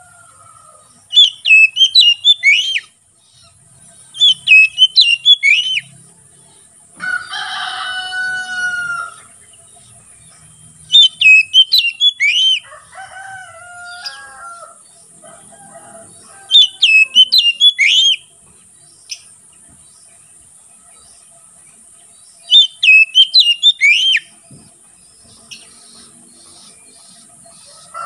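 Oriental magpie-robin (kacer) singing loud, open "ngeplong" song: five bursts of rapid whistled notes, each about a second and a half long, a few seconds apart. A rooster crows once about seven seconds in.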